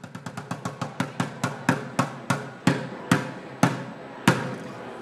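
Drumsticks striking upturned buckets in a stomp-style percussion run. A fast run of sharp strikes slows down and grows louder, ending in single strokes about half a second apart.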